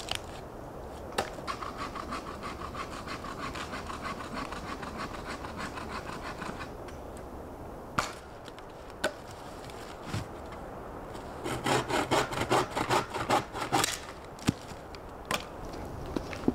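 Hand saw cutting a dead pine pole into firewood lengths: a steady run of quick rasping strokes, a pause with a couple of sharp wooden knocks, then a second, louder run of strokes, followed by a few more knocks.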